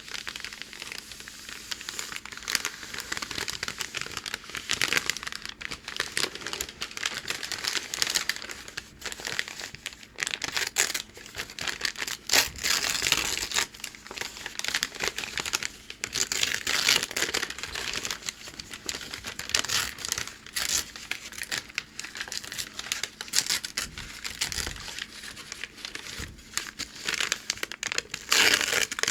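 Packing paper crinkling and crackling as hands work it close to the microphone, the crackles dense and uneven with louder stretches now and then.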